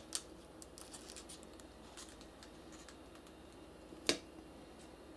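Faint small clicks and scratches of a paper car's wheels and paper spring being wound by hand, then a sharp tap about four seconds in as the car is set down on a tatami mat.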